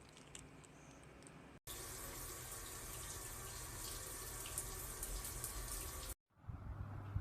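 Water spraying from a shower head, a steady hiss of running water that starts suddenly about a second and a half in and stops suddenly about six seconds in.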